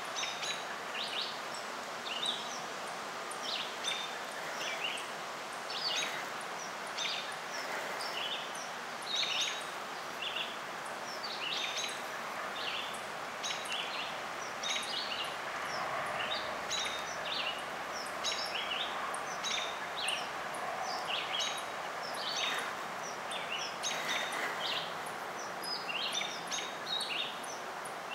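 Small birds chirping, short high calls coming several times a second throughout, over a steady background hiss of outdoor ambience.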